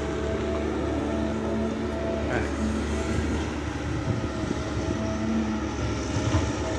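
Hydraulic excavator's diesel engine running steadily under working load, with a pitched hydraulic hum that swells and fades several times.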